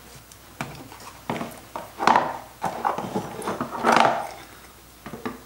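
Kitchen handling sounds: a few light knocks and short scuffs as a carton of cream is emptied into a plastic mixer bowl and a glass plate of butter is picked up from the table. The loudest scuffs come about two seconds in and again near four seconds.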